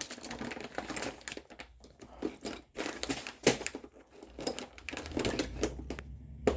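Rummaging for a bottle of thread-locker among tools and parts: irregular light clicks, clatter and rustling of small hard objects being handled.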